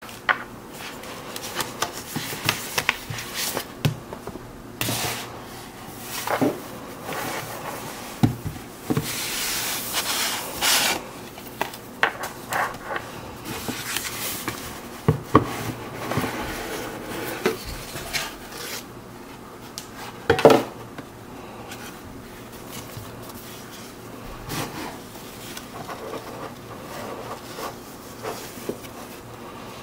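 Cotton-gloved hands handling a Rolex watch box and its cardboard packaging: scrapes, rubbing and many light taps and clicks as the outer box, card insert and green presentation box are handled and opened. A longer scraping rush comes about a third of the way in, and one louder knock about two-thirds through.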